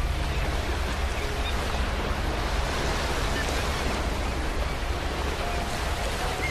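Ocean surf: waves washing on a beach in a steady, continuous rush.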